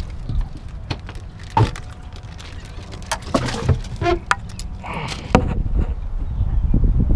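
Wind buffeting the microphone, with a handful of scattered knocks, clicks and rattles from gear and a fish being handled on a fibreglass boat deck. The loudest is a sharp knock about five seconds in.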